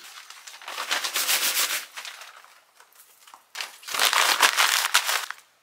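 A paper map being crumpled by hand: two bursts of crinkling, crackling paper, the first about a second in and the second from about three and a half seconds.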